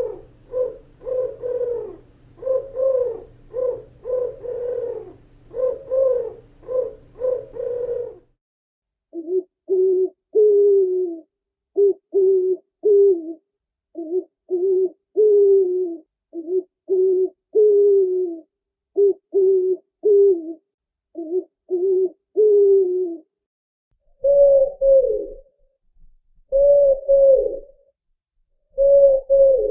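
Owl hooting: rapid runs of short, low hooted notes, in three different recordings. The first runs over a low steady hum, the second, from about eight seconds in, is lower with slightly falling notes, and the third, near the end, is higher with gaps between phrases.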